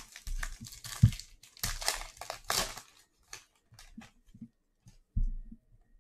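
A trading-card pack's shiny wrapper being torn open and crinkled by hand over the first three seconds. Then comes the lighter clicking and sliding of the cards as they are pulled out and handled, with a soft knock a little after five seconds.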